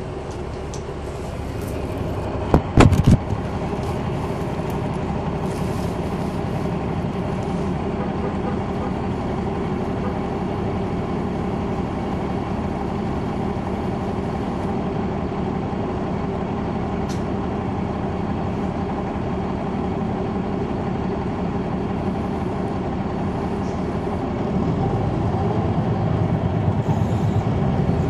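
Caterpillar C9 ACERT diesel engine of an articulated Neoplan AN459 transit bus humming steadily, heard from inside the bus while it runs. A brief sharp clatter comes about three seconds in, and the low rumble grows louder near the end as the engine works harder.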